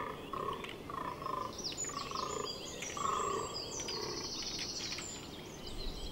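Fallow deer bucks fighting in the rut: scattered sharp knocks and clatters, typical of antlers clashing, among a string of short repeated calls about twice a second.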